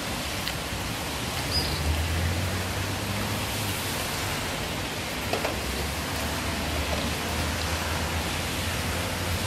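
Steady outdoor background hiss, with a low steady hum joining about two seconds in.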